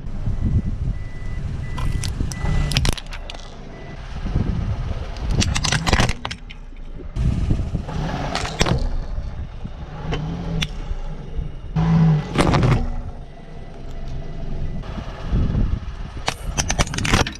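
A car tyre rolling over objects and crushing them: repeated sharp cracks and crunches in clusters, over a steady low rumble of the car.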